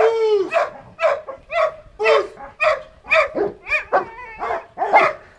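Large mastiff-type dog barking in a steady string, about two barks a second, aggressive barking at a decoy during protection training.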